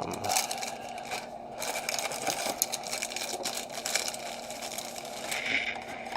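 A cardboard trading-card box and its packs handled by hand: irregular rustling, scraping and light tapping.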